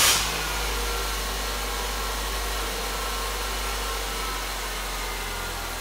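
1994 Saturn SL1's 1.9-litre four-cylinder engine running steadily at idle, having just been started, with a brief flare right at the start.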